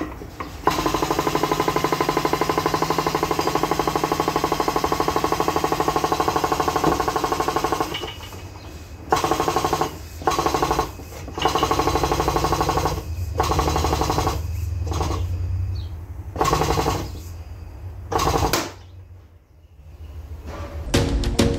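Frame-straightening machine's pump running with a rapid, steady chatter for several seconds, then in a series of short bursts, as its chain pulls the crash-damaged door outward.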